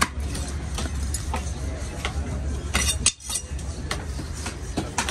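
Heavy knife scraping scales off a large fish on a wooden block: sharp, irregular scraping clicks a few times a second over steady market background noise.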